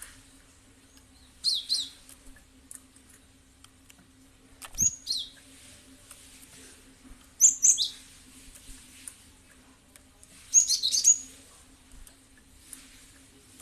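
Cinereous tit (gelatik batu) calling: four short phrases of high, falling chirps, spaced about three seconds apart, over a faint steady hum.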